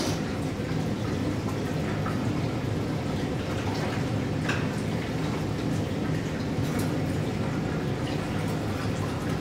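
Tap water running steadily up through a PVC-pipe film washer and spilling into a darkroom sink, with a few light clicks partway through.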